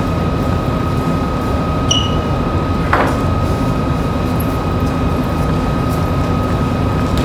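Steady low rumble with a constant high hum, a brief high squeak about two seconds in and a single sharp tap about three seconds in.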